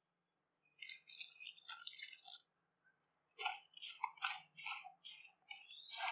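A bare hand squeezing and mixing chopped raw onion with gram flour, salt and spices in a plastic bowl, making moist crunching and squishing. It starts about a second in with a run of crackling, then goes on as separate squeezes about two a second.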